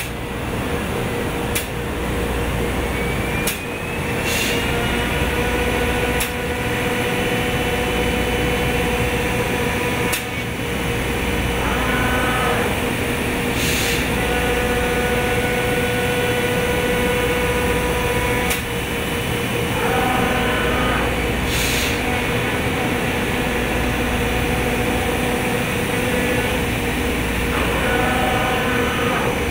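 Heian CNC router spindle with a V-groove bit cutting grooves in MDF: a steady machining noise with a held whine underneath. A rising tone comes in about two seconds in, and short warbling tones recur roughly every eight seconds.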